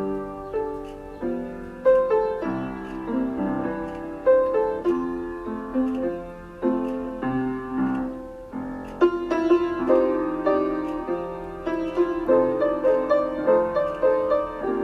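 Background piano music: single notes and chords struck at a steady, unhurried pace.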